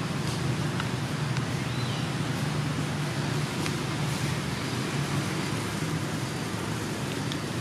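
Steady low outdoor background rumble, with a few faint clicks and a brief faint chirp about two seconds in.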